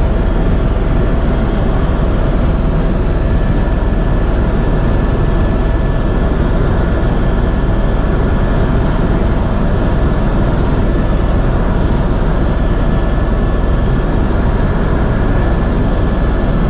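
Helicopter engine and rotor noise heard inside the cabin, loud and steady, with a few faint steady whines over a heavy low rumble.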